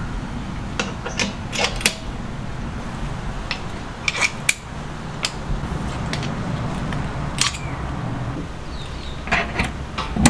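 Sharp metal clicks and clinks of stainless steel quick-disconnect fittings and a brewing hose being handled and snapped together on a pump and kettle valve, coming irregularly with a cluster near the end, over a steady low hum.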